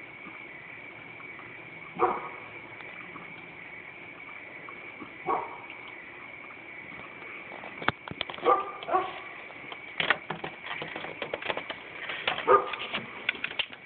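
An animal gives about five short calls, spread out over the stretch, the loudest near the start and near the end. From about halfway on there is a run of sharp clicks and knocks. A steady high whine runs underneath.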